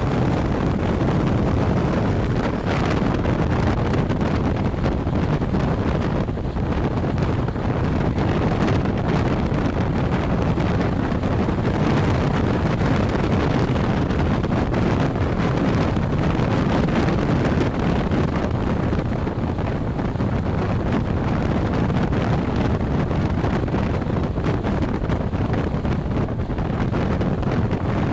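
Steady rushing wind on the camcorder's microphone, loud and unbroken, with most of its weight in the low end.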